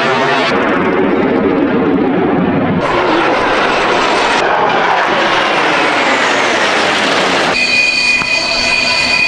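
Jet aircraft engine noise, loud and steady, in several clips cut together; from about three-quarters of the way in, a steady high-pitched whine sits over the noise.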